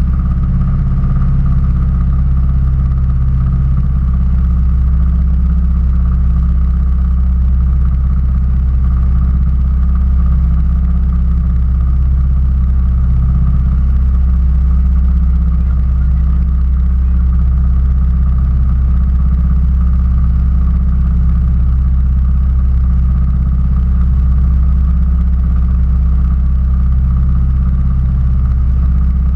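Railroad speeder (track motorcar) engine idling steadily, a loud, low, even note that never speeds up or slows down.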